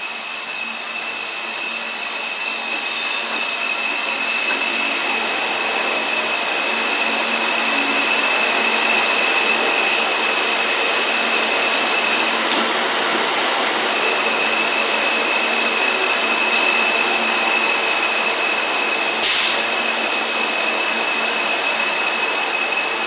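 R160 New York City subway train pulling into the station along the platform. Its running noise grows louder over the first several seconds and then holds steady. A steady high-pitched whine runs over it and breaks off briefly midway, and there is a short sharp burst of noise about 19 seconds in.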